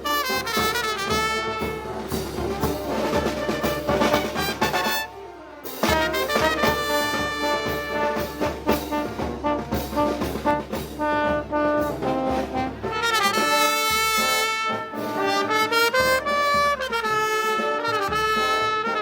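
Brass band playing Moros y Cristianos festival music, trumpets and trombones carrying the melody over a steady drum beat, with a brief break about five seconds in.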